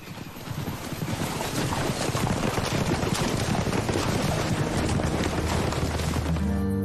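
Several horses galloping across wet sand, their hoofbeats over a steady rushing noise that rises in over the first two seconds. Music comes in near the end.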